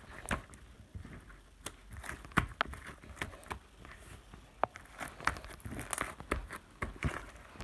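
Irregular clicks, taps and rustling, like something being handled, with a few sharper knocks about two and a half seconds in and again near the end.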